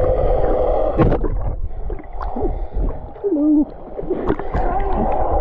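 Water sloshing and gurgling close to the microphone, with low rumbling bursts and a short wavering tone about three seconds in.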